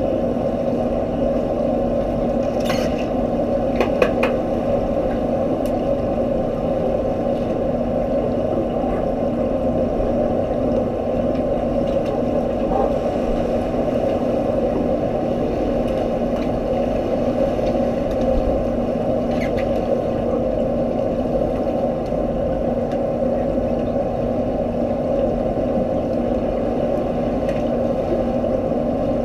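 Steady underwater noise of a swimming pool picked up by a submerged camera: an even hum and hiss, with a few sharp clicks during underwater rugby play.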